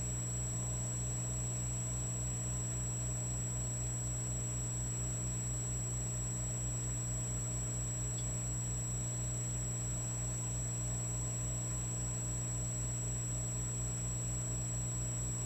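Electric fireplace log set running with a steady electric hum, a fast even low pulse under it and a faint high whine; no crackling.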